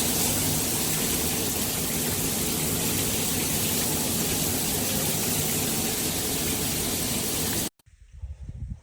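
Water spraying from a shower head in a steady, even hiss, which stops abruptly about a second before the end.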